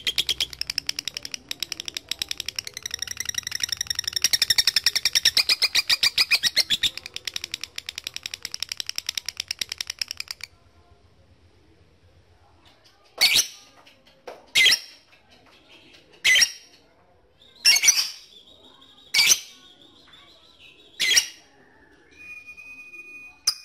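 Lovebird 'ngekek': a long, rapid chattering trill lasting about ten seconds, then after a pause six short, sharp chirps a second or two apart. A faint steady high tone comes in near the end.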